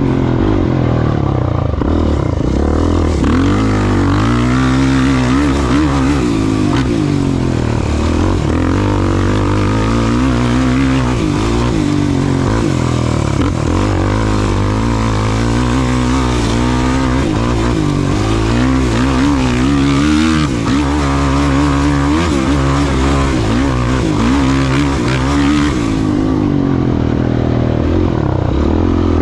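Off-road racing engine revving up and down repeatedly as the throttle opens and closes at race pace. A rushing noise runs over most of it and fades away near the end.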